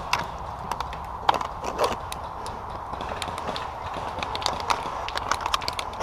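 Airsoft guns firing in the distance: scattered sharp clicks and snaps at irregular spacing, over a low steady rumble.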